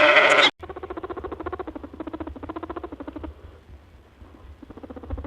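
A bleat that cuts off suddenly about half a second in. A small animal's rapid, pulsing, rattling calls follow, in phrases of a second or two with a short pause near the middle.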